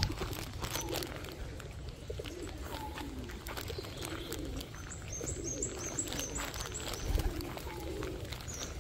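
Pigeons cooing over and over in low, wavering calls. About five seconds in, a small bird gives a quick run of high chirps.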